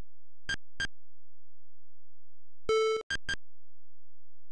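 Synthetic computer sound effects from a classic Macintosh running a Chipmunk Basic sprite demo: two short high electronic blips about half a second in, a harsh buzz lasting about a third of a second a little before three seconds, then two more quick blips.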